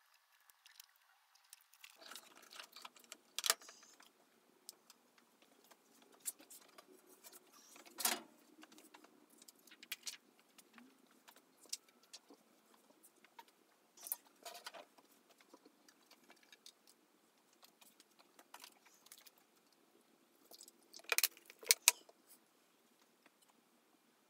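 Scattered light taps, clicks and rustles of hands handling sheets of paper, transparency film and test prints on a table, with a few sharper clacks about 3, 8, 14 and 21 seconds in.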